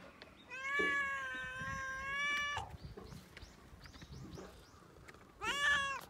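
Tabby cat meowing: one long meow lasting about two seconds, starting about half a second in, then a shorter, rising meow near the end.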